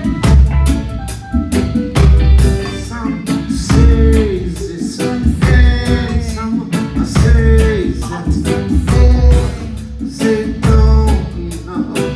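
Band music with drum kit, bass and guitar playing a steady beat, a strong low hit about once a second, and a singing voice over it.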